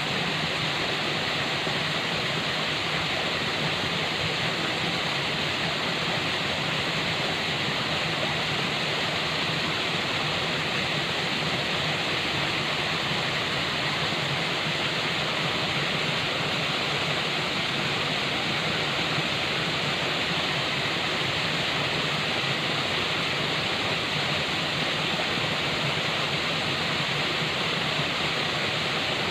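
Falling water rushing steadily, an even, unbroken hiss that stays at the same level throughout.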